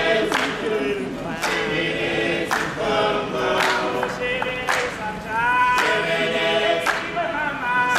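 A group of voices singing together in harmony, with a sharp beat about once a second.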